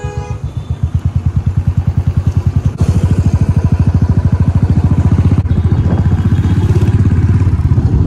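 Royal Enfield Classic 350's single-cylinder engine running under way, with a rapid, even beat of exhaust pulses. The bike grows louder over the first few seconds as it pulls away, then runs steadily.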